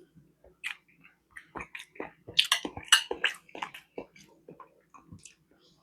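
A person chewing food, with a run of short mouth clicks and smacks that are thickest and loudest from about two to four seconds in.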